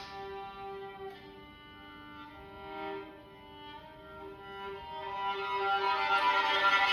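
Violin playing slow, long held notes that swell louder near the end, over sustained ringing tones. Two struck notes sound in the first second or so.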